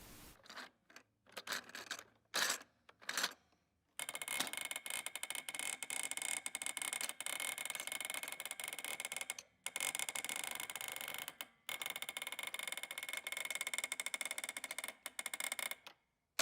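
Fast, continuous mechanical clicking and rattling, like small gears or a ratchet turning. It sets in about four seconds in after a few short scattered clicks, breaks off briefly twice, and stops near the end.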